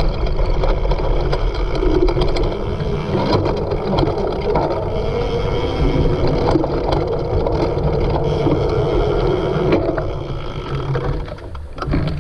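Wind buffeting the microphone as a cyclocross bike is ridden fast, with rattles and knocks from the bike over rough ground. It dies down about ten seconds in.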